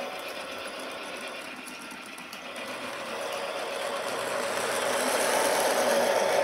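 Electric model trains running on the track: a steady motor whir with wheel rattle. It grows louder over the second half as the passenger cars pass close by.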